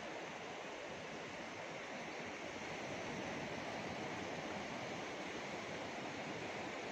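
Steady wash of ocean surf on a beach: an even, unbroken hiss with no distinct strokes or calls.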